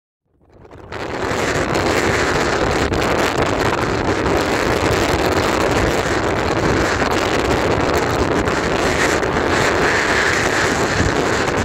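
Gale-force storm wind buffeting the microphone over a rough sea, with waves breaking on a rock breakwater. It fades in during the first second, then holds as a steady, loud rush.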